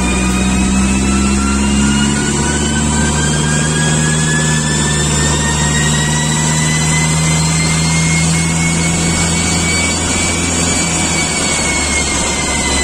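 Perodua Myvi's 1.3-litre K3 four-cylinder engine with a bolt-on turbo, running steadily at around 2,000 rpm on a chassis dyno. A whine over it rises slowly in pitch for most of the stretch and eases slightly near the end.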